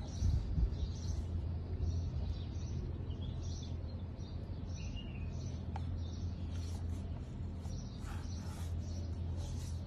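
Outdoor ambience: birds chirping in short, repeated bursts over a steady low hum.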